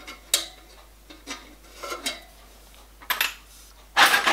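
Light metallic clinks and taps as the copper firebox assembly and its clamp are handled, a few separate clicks about a second apart, then a louder clatter of metal lasting under a second near the end.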